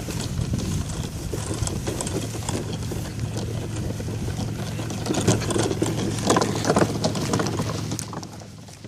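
A small vehicle driving off-road over bumpy ground: a steady motor hum under a continuous clatter of knocks and rattles, with louder jolts about five to seven seconds in.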